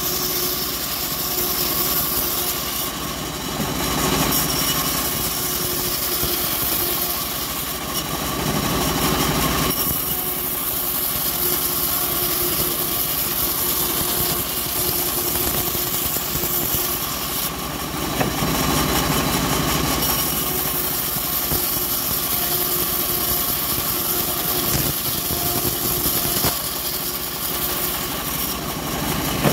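Homemade bandsaw mill running steadily while its blade rips acacia wood into long thin strips. A hiss of cutting swells and eases as each board is fed through.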